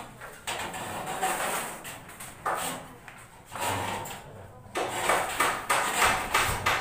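Ceiling board being pushed and slid against a metal ceiling frame overhead: rough scraping and rubbing in spells of about a second, then a quick run of knocks and taps from about five seconds in.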